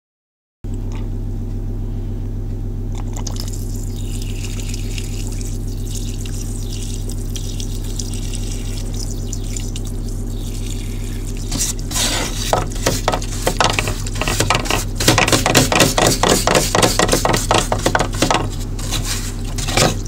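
Parts washer pump humming steadily while fluid pours from its brush nozzle over a 4L60E manifold pressure switch plate, flushing fine metal out of the pressure switches. About halfway in, irregular splashing and scrubbing start as the brush works over the plate.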